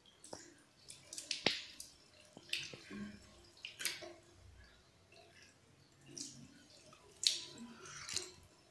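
Water splashing as a face is rinsed by hand over a basin, in irregular splashes, with water dripping off.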